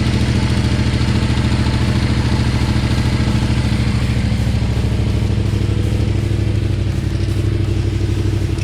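2019 Yamaha MT-07's parallel-twin engine idling steadily. It is run briefly after an oil change so that oil pressure builds and the new, empty oil filter fills.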